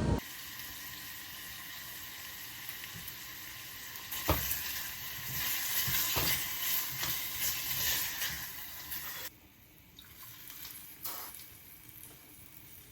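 Food sizzling as it fries in a pan, with a few knocks of a utensil. The sizzle grows louder about four seconds in and drops away suddenly about nine seconds in.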